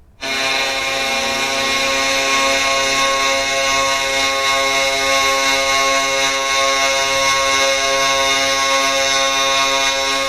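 Philadelphia Flyers arena goal horn blowing one long, steady blast that starts abruptly about a quarter second in.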